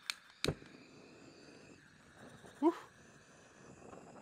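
A handheld butane torch clicks twice on its igniter, then hisses steadily as it lights a fire lighter on a scoop of wood pellets. About two and a half seconds in comes a short, squeaky whine that wavers in pitch.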